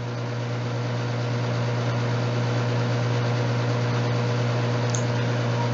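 Steady machine hum with a whirring hiss, like a cooling fan running. It swells over the first second, then holds level.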